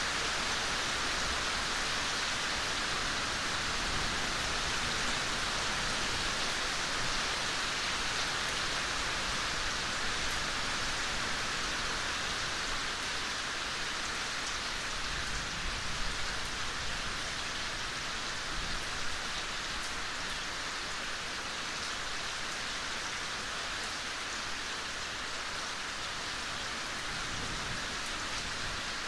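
Steady, gentle rain falling in a forest: an even hiss of rainfall with scattered individual drops.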